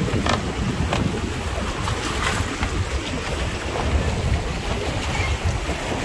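Wind buffeting the microphone with a steady low rumble, over the wash of sea waves on a rocky shore. A few light knocks come in the first couple of seconds.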